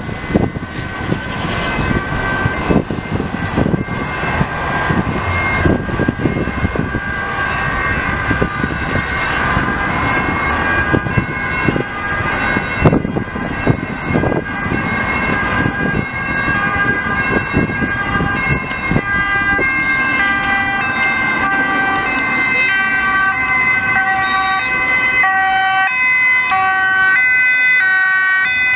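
Several emergency-vehicle sirens from an approaching convoy of ambulances and police motorcycles, sounding together in overlapping alternating two-tone wails that grow louder toward the end. Road traffic rumbles underneath.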